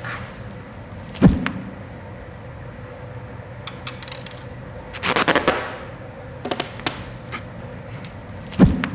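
Foley sound effects made by hand with household objects: a heavy low thump, a few sharp clicks and taps, a brief rustling burst in the middle, and a second heavy thump near the end.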